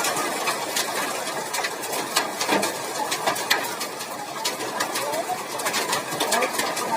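Heavy hailstorm: a steady rush of rain with hailstones striking hard surfaces in irregular sharp clicks and knocks.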